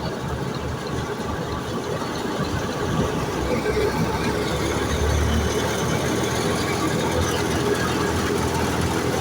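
Wheat thresher running, a steady engine-driven mechanical drone that grows a little louder about three seconds in.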